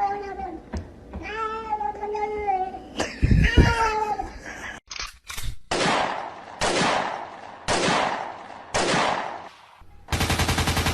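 Cat meowing in long drawn-out yowls that waver in pitch. These are followed by four loud breathy bursts about a second apart, and a short buzzing rattle near the end.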